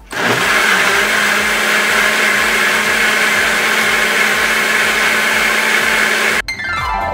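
Personal bullet-style blender running steadily as it blends fruit and juice into a smoothie. It cuts off about six seconds in, followed by a falling whine.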